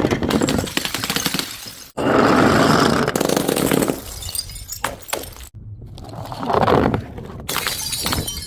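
Glass bottles smashing and broken glass crunching, in several short loud stretches that stop and restart abruptly three times.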